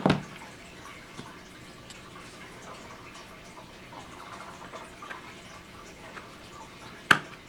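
Wooden chipboard pieces being handled and set down while assembling a glued organizer: one sharp knock at the start and another near the end, with a few faint clicks in between.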